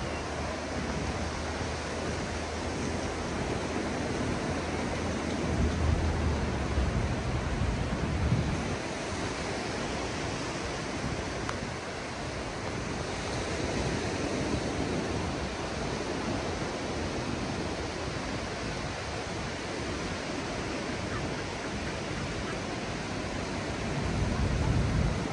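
Ocean surf washing ashore: a steady rush of noise that swells louder about six seconds in and again near the end.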